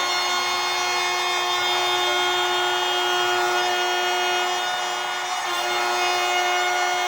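Electric woodworking power tool running steadily with a high motor whine, dipping briefly in pitch and level a little after five seconds in, as when it bites into the wood.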